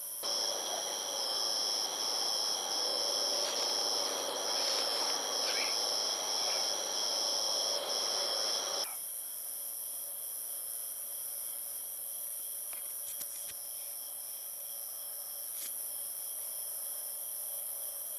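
Night insects chirping: a steady high-pitched trill with a second band pulsing on and off in regular chirps. For the first nine seconds a broad hiss lies over it, then cuts off suddenly, leaving the insect chorus alone with a few faint clicks.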